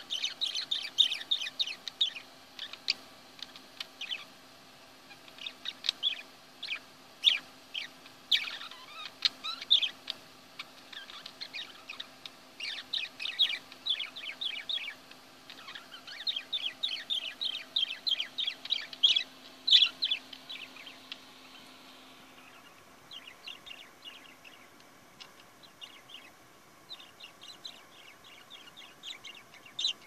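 Budgie warbling: a fast, continuous run of chirps and chatter that turns softer and more broken after about twenty-three seconds.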